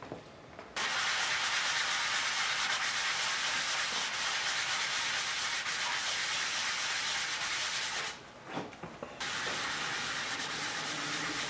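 Fine foam sanding block rubbed back and forth by hand over cured Bondo body filler on a motorcycle gas tank, smoothing the filler flush with the paint: a steady scratchy hiss. It starts about a second in, stops briefly near the eight-second mark, then starts again.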